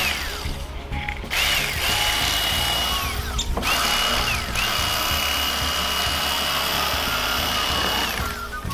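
Bubba Blade corded electric fillet knife running as it slices a yellow perch fillet: a steady high motor whine switched on and off several times, rising as it spins up and falling away each time it stops, with the longest run lasting about three and a half seconds near the end.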